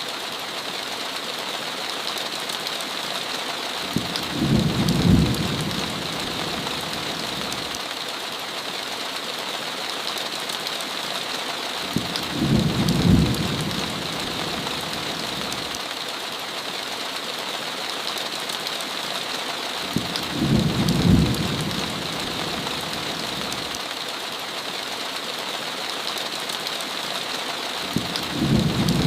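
Heavy rain falling steadily, with a low rumble of thunder about every eight seconds, four times, each lasting about two seconds.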